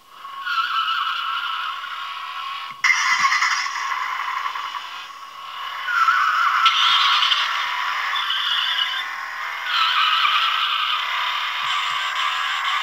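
Hot Wheels Edge Glow Cruisers toy cars playing electronic engine sound effects through their tiny built-in speakers, thin and without bass, as their roof buttons are pressed. New clips start one after another, about three, six and ten seconds in.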